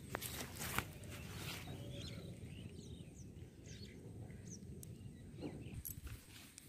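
Quiet outdoor ambience: small birds chirping briefly now and then, over a low steady rumble, with a few sharp clicks in the first second and a half.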